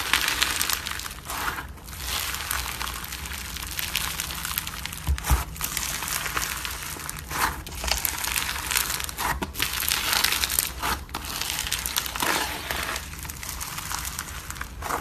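Slime being squeezed and pressed by hand, making a dense run of crackling and popping with short pauses between squeezes.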